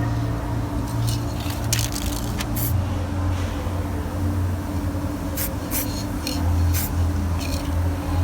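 A paint spray gun hissing in about ten short bursts, in two clusters, over a steady low hum.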